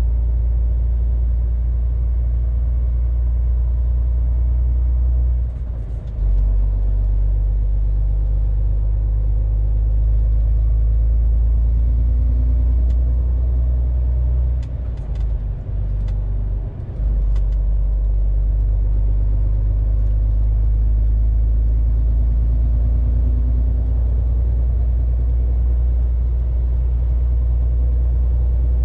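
MAN TGX 470 truck's straight-six diesel and tyres droning steadily inside the cab while cruising on the motorway. The low drone dips briefly about five seconds in and again around fifteen seconds.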